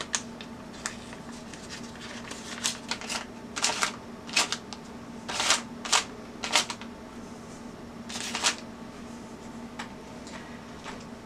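Soft butter being scraped off its wrapper into a glass bowl of sugar: a string of short, irregular papery scrapes and clicks, over a steady low hum.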